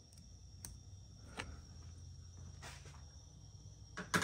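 Faint clicks and taps of parts and tools being handled at the engine bay, with a sharp louder click near the end, over a steady low hum and a steady high-pitched whine.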